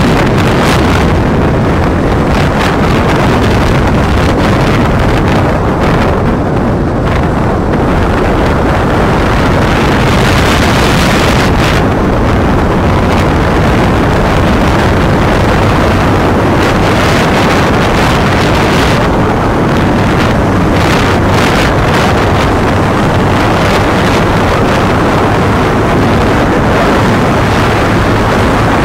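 Loud, steady wind rush buffeting the microphone on a moving motorcycle, with brief gusts, and the Bajaj Pulsar 180's single-cylinder engine running underneath.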